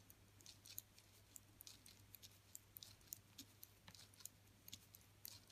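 Faint, irregular clicking and tapping of metal knitting needles as knit stitches are worked.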